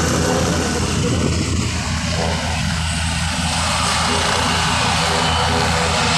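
Helicopter running on the ground with its main rotor turning: a steady engine noise with a fast, even rotor beat underneath and a broad rushing hiss of blade wash.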